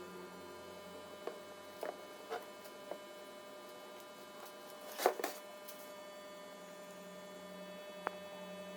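Steady electrical hum with several light clicks and knocks, the loudest about five seconds in.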